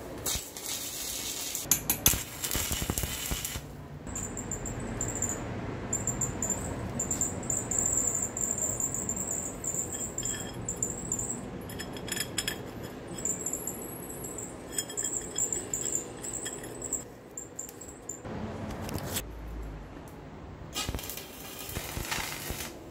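Stick (arc) welding on a steel-tube frame, the arc crackling and hissing in short runs near the start and again near the end. In between, steel parts clink and knock as they are handled and fitted.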